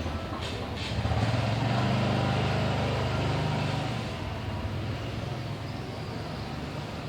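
A motor vehicle passing on a street. Its engine grows louder about a second in and fades away after about four seconds, over steady traffic noise.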